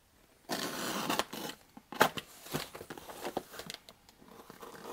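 A folding knife that is not very sharp slitting tape along the seam of a cardboard box: scratchy slicing strokes through tape and cardboard, twice, with sharp crackles and clicks between.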